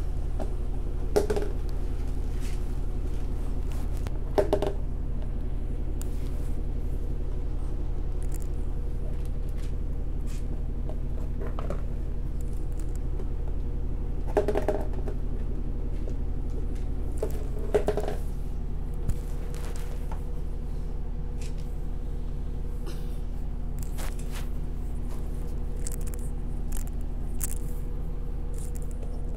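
Beagle pushing and lifting a clear plastic tub on a tile floor, the tub knocking and scraping on the tile about ten times, over a steady low hum.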